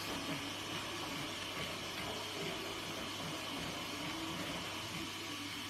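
Steady background hiss with a constant low hum, and faint low sounds that waver in pitch now and then.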